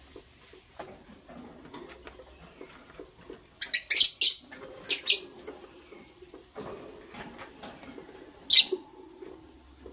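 Lovebirds giving short, shrill chirps: a quick run of them about four seconds in, another around five seconds, and one more near the end, over faint rustling and scratching.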